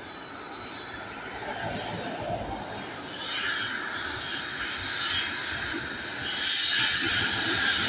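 Turbofan engines of a USAF C-5M Super Galaxy on approach to land: a jet rumble with a high steady whine, growing steadily louder as the aircraft comes closer overhead.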